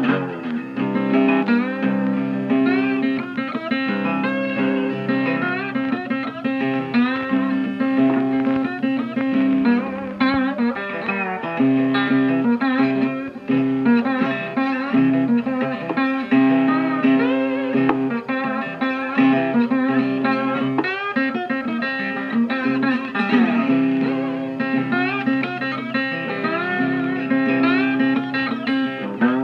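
Background music: a guitar-led blues instrumental, with sliding guitar notes over a held bass line.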